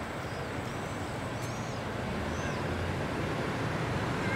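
Steady outdoor street background: a low rumble, like traffic, that slowly grows louder, with a few faint high chirps about a second and a half in.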